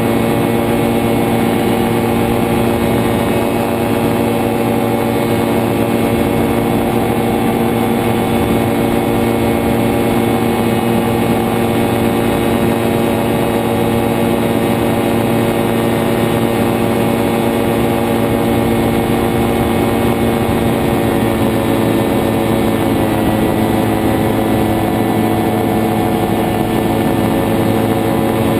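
Nano trike powered hang glider's JPX 320 engine and pusher propeller running steadily in flight, a constant engine note over a rushing noise. The note shifts slightly about two thirds of the way through.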